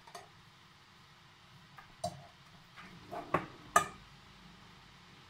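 A metal spoon knocking and scraping against a stainless steel pot of minced meat being stirred: a few scattered clinks, one about two seconds in and the loudest in a cluster between three and four seconds in.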